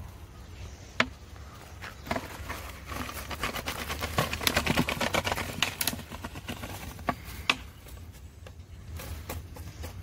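A large plastic bottle being handled and tipped out, with a dense run of rapid clicks and rattles in the middle as a snake slides out of it. Single sharp clicks come before and after.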